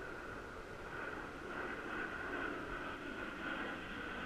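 Low-flying turboprop military transport aircraft, which the uploader takes for an Airbus A400M, droning steadily as it approaches, gradually growing louder.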